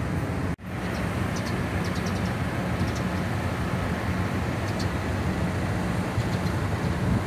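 Wind buffeting the microphone outdoors: a steady low rumble that cuts out briefly about half a second in.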